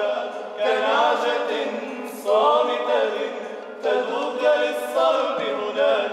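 Men singing an Arabic Maronite hymn unaccompanied. A lead voice carries an ornamented, wavering melody in short phrases over a steady, low note held underneath.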